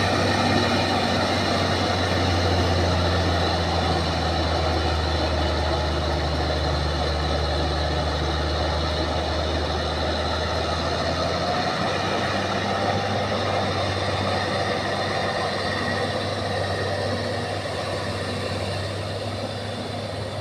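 Bulldozer's diesel engine running steadily with a deep hum, gradually getting quieter over the last few seconds.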